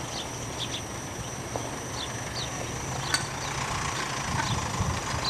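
A steady low engine-like rumble, with short high chirps recurring through it and a single sharp click about three seconds in.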